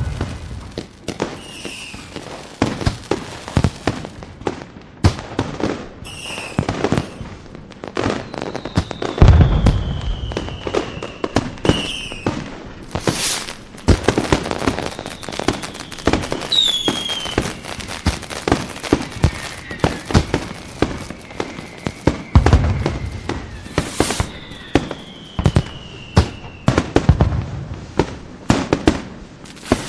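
Fireworks display: a dense run of sharp bangs and crackling pops, with deep booms about nine and twenty-two seconds in, and several long whistles sliding down in pitch.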